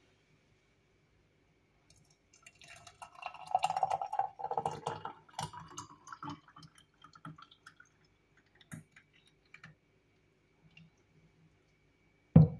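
Thick beetroot smoothie poured from a plastic jug into a drinking glass: a gurgling, splashing stream starts about two seconds in and runs for a few seconds, then trails off into a few drips and light clicks. A sharp thump comes near the end.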